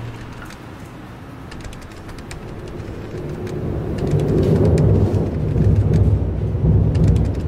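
Thunderstorm sound: a low rolling rumble with a light crackle, swelling from about three seconds in.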